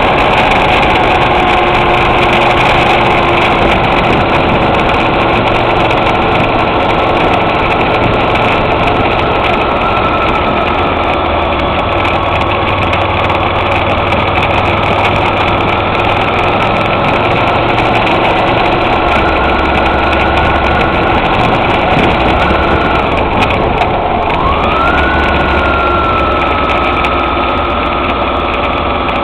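Twin-cylinder motorcycle engine running steadily under way. About three-quarters of the way through, its pitch drops briefly and then climbs back up and levels off.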